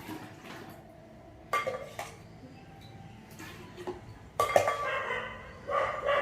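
Hard plastic container being handled while filling it with water, with a few sharp knocks and clinks that ring briefly, the loudest about four and a half seconds in.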